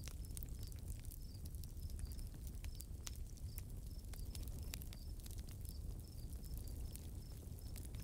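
Nature-sound ambience: crickets chirping, short high chirps about twice a second, over scattered sharp ticks and a low steady rumble.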